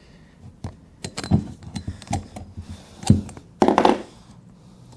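Pliers and a large diesel piston knocking and clinking against a wooden workbench while a badly stuck second compression ring is worked at. A series of sharp knocks, loudest a little after three seconds in.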